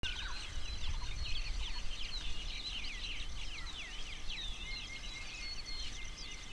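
Dense chorus of many wild birds calling at once, short chirps and whistles overlapping throughout, over a steady high pulsing trill and a low rumble.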